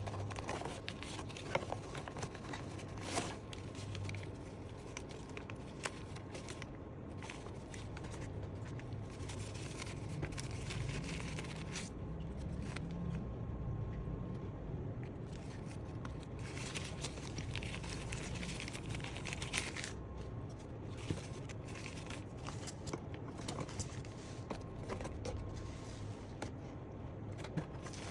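Unboxing noise from camera packaging: irregular crinkling, tearing and scraping of wrapping and box, with scattered light clicks and knocks.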